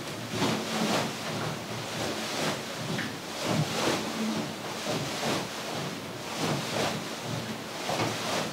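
Swishing and rustling of a martial-arts sparring drill, repeated in an irregular rhythm: gi sleeves snapping with one-two punches and bare feet shifting on a wooden floor as the partner ducks and sways.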